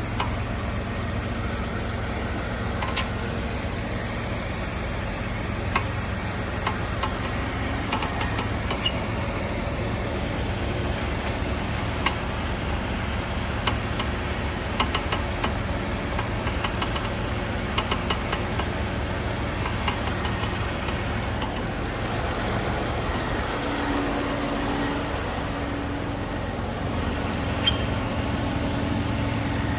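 Chevrolet Monza idling while the steering wheel is turned, with scattered knocks from the front suspension at irregular moments. This is a steering knock that new strut mounts have not cured.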